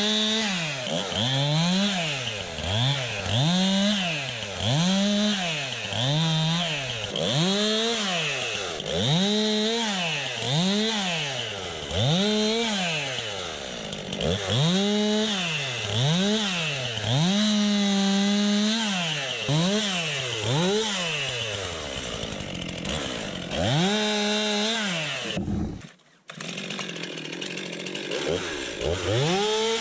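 Two-stroke chainsaw cutting through a felled dead birch trunk. The engine revs up and falls back over and over, roughly once a second, and is held at full revs for a couple of seconds in the middle. The sound breaks off briefly near the end.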